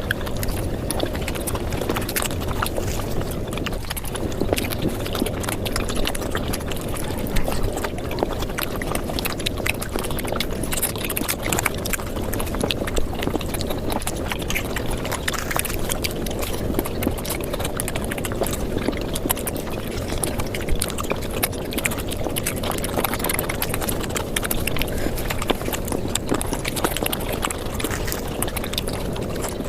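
Mukbang eating sounds of paratha and luchi flatbread sped up five times: chewing and mouth noises run together into a dense, unbroken stream of rapid clicks over a steady low rumble.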